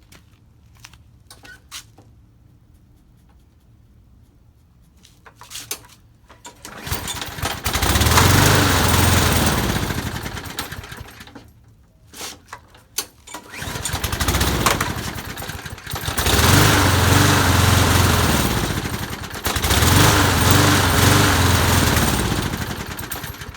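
Briggs & Stratton lawn mower engine started by hand, catching and running in surges of a few seconds that sag and die back, then picking up again, several times: it won't stay running, starved of fuel because the channel holes in the carburetor's float bowl bolt are clogged. A few light clicks of handling come before it starts.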